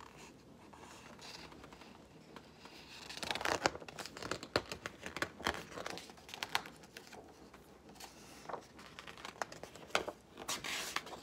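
Pages of a picture book being handled and turned: irregular paper rustling and crinkling, starting about three seconds in.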